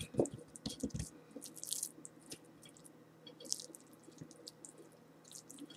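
Hands rubbing a dry spice rub into raw salmon fillets on a plate: faint wet squishing and patting, with a few soft thumps in the first second.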